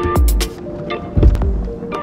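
Background music with a strong bass line and sharp drum hits.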